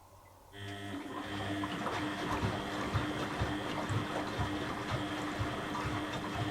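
Beko WTB841R2W washing machine starting up about half a second in, running with a steady hum, water noise and regular low thumps about two a second.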